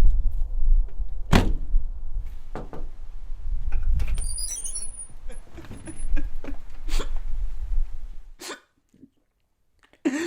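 A loud low rumble with several sharp thunks, like doors shutting, the strongest about a second and a half in, and a brief high chirp in the middle. The rumble cuts off suddenly near the end.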